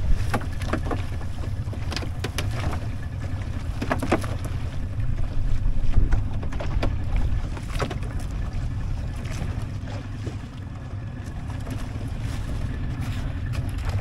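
Wind buffeting the microphone at sea as a steady low rumble, with scattered short knocks and slaps of water throughout.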